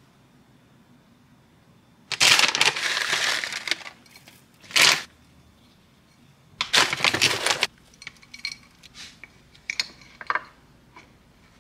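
Food bags crinkling and rustling as toppings are poured out, in three loud bursts, the first the longest, then a few lighter clicks and taps.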